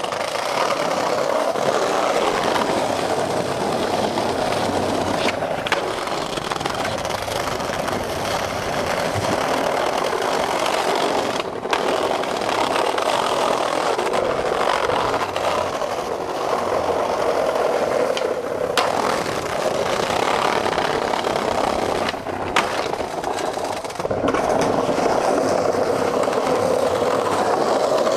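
Skateboard wheels rolling over brick paving: a steady rolling noise with a few sharp clicks, broken briefly twice.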